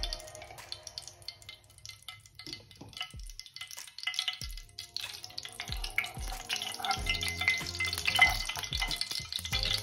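Desi ghee melting in a kadai, a steel spoon scraping and stirring it against the pan. A soft crackle of frying starts about halfway and grows louder as the ghee gets hot.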